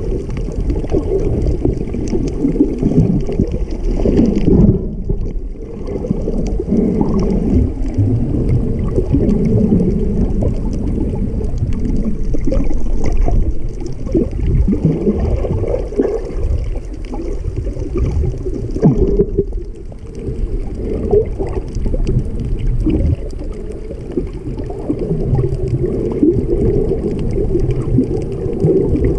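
Muffled underwater sound from a camera in its waterproof housing: a low, steady rumble and gurgle of water moving around it. The higher hiss drops away briefly twice, about five and twenty seconds in.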